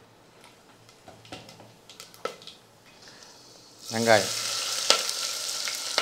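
Whole spices crackling faintly in hot oil in a steel pressure cooker, a few scattered ticks. About four seconds in, chopped onion is dropped into the oil and it breaks into a loud, steady sizzle.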